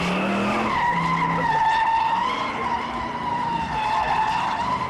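Car tyres squealing in one long, unbroken drift: a high, slightly wavering squeal, with the car's engine running underneath.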